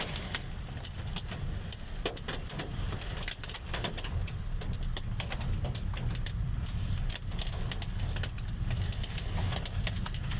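Hailstorm pelting a vehicle: a dense, irregular patter of hailstones and heavy rain striking the roof and windows, over the low rumble of the vehicle itself.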